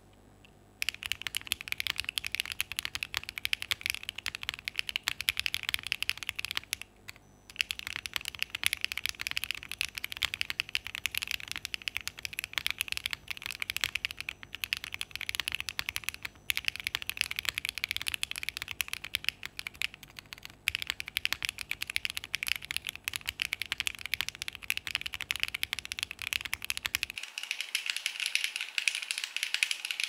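Steady typing on a Dots87 mechanical keyboard fitted with Clould switches, a polycarbonate plate and GMK Oblivion keycaps: a continuous run of key clacks. There is a brief pause about seven seconds in.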